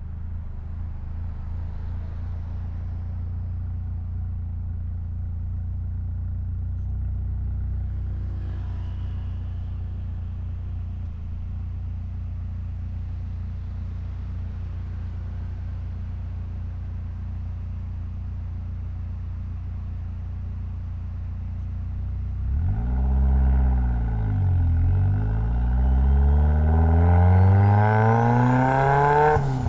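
Mitsubishi Lancer Evolution X's turbocharged four-cylinder engine running with a steady low drone, then about 22 seconds in it revs up and down and accelerates hard, its pitch climbing repeatedly with short drops between, as it shifts up through the gears.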